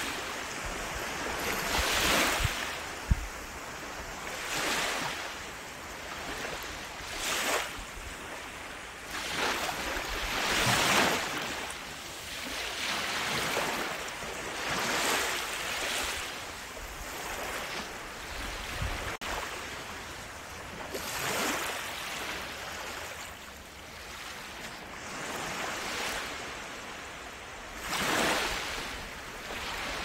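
Sea waves washing onto a shore, each swell rising and falling away every two to three seconds, with a single sharp click about three seconds in.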